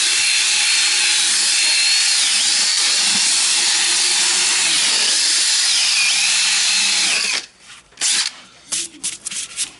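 Power drill with a sanding drum running at high speed, grinding the urethane shoe and hoof wall. Its whine dips briefly twice, and it stops about seven seconds in, followed by a few light knocks.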